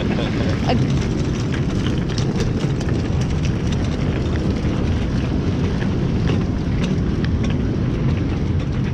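Steady wind rumble buffeting the microphone, with scattered small clicks over it.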